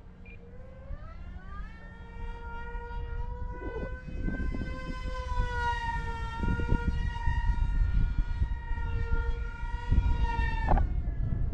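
Small RC plane's brushless electric motor and propeller whining. The pitch rises over a couple of seconds as the throttle comes up, holds steady at high power, then drops sharply near the end. Wind buffets the microphone throughout, louder in the second half.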